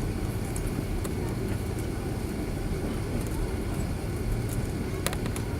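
Steady low rumble of cabin noise inside an Airbus A330-300 airliner on the ground, with a short cluster of clicks about five seconds in.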